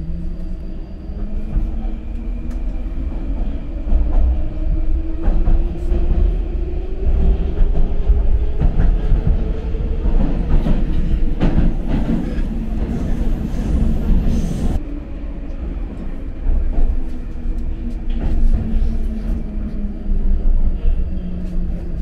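Metro train heard from inside the car: the traction motors' whine rises in pitch as the train pulls away. The wheels rumble and clatter through the tunnel, loudest in the middle, then the whine falls as the train brakes into the next station.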